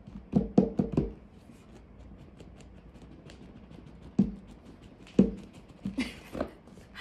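Hands handling a rigid cardboard gift box: a quick run of taps and knocks in the first second, a couple of single knocks later, and a short scraping slide of the lid against the box near the end.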